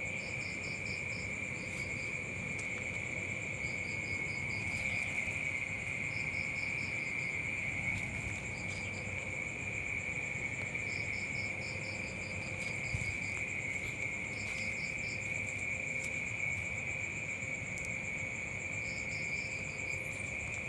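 Insects, crickets, calling together: one steady high trill throughout, short bursts of rapid chirps every second or few, and a fainter, higher buzz above them.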